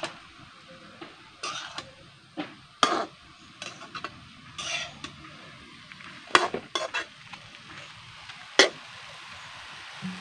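Metal spatula scraping and stirring chopped elephant ear yam and greens in a metal wok: irregular scrapes and clinks against the pan, the sharpest about three seconds in, six and a half seconds in and near the end, over a faint sizzle of frying.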